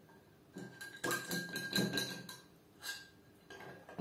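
Metal spoon stirring salt water in a drinking glass, clinking irregularly against the glass, which rings briefly after the strikes; the clinks are thickest about a second in and thin out near the end.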